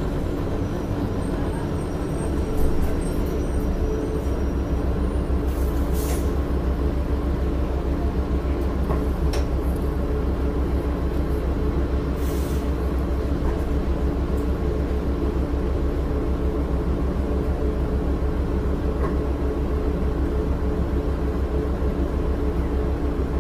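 Cabin sound of a 2006 Orion VII low-floor bus: its Cummins ISL9 diesel runs steadily with a low drone and an even hum that does not change pitch. Two short hisses of air cut in, about six and twelve seconds in.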